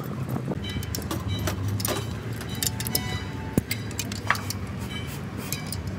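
Metal hand tools and engine parts clinking and jangling, with scattered sharp clicks and short metallic rings. A steady low hum runs underneath.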